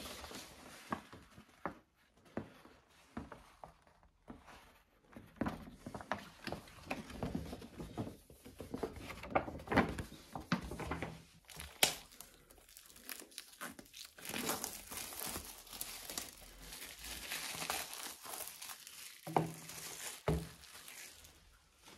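Packaging being unwrapped by hand: a paper mailer handled and pulled away, then clear plastic wrap torn and peeled off an album box. The plastic gives irregular crinkling and crackling, densest a little past the middle, with a few soft knocks as the box is set down and handled.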